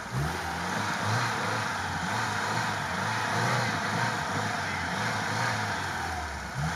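Lada Niva engine revving hard under load as the stuck car tries to pull out of snowy sand. The revs jump up at once, hold with a rising and falling pulse, dip briefly near the end and climb again.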